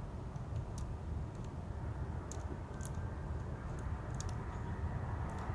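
Light scattered ticks and scratches of a fine-tip ink pen on paper as a drawing is traced, heard as a handful of short clicks over a steady low outdoor rumble.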